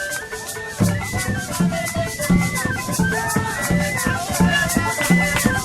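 Traditional Buganda dance music: drums beating a steady pulse about two and a half times a second, with rattles shaking along and a melody running above.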